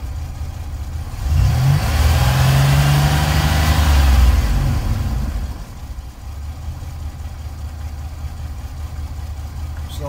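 2004 Chevrolet Astro van's 4.3-litre V6 idling, revved up about a second in, held for about four seconds, then dropping back to idle, heard from inside the cab. It revs smoothly on a newly replaced fuel injector spider assembly, with no engine light.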